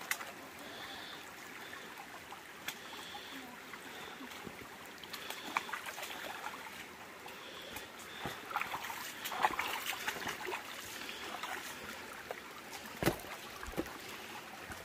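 Stream water trickling steadily, with scattered small splashes and knocks, a cluster of them about two-thirds of the way through.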